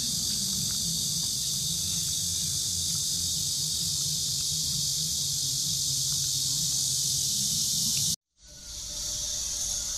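A steady high hiss with a low rumble beneath it, cutting out abruptly about eight seconds in and coming back a moment later.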